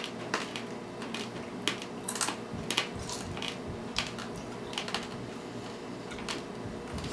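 Scattered light clicks and clinks from cutlery and dishes being handled, irregular, a few a second, over a low steady hum.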